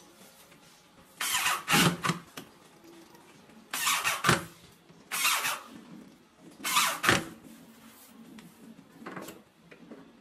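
Corded electric drill run in four short bursts of about a second each into the edge of a door, with a weaker, shorter fifth burst near the end.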